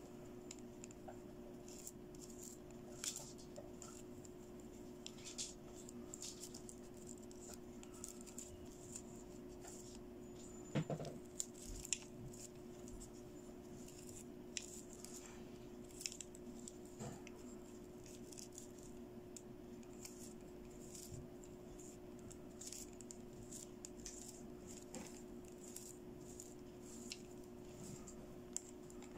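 Faint handling sounds of a plastic fashion doll being dressed: soft rustles and scattered light clicks as fingers adjust its faux-fur jacket, plastic arms and sequined dress, with a few louder knocks about eleven seconds in. A steady low hum runs underneath.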